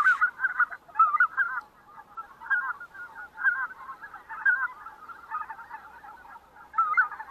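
A flock of geese calling, many overlapping honking calls without a break.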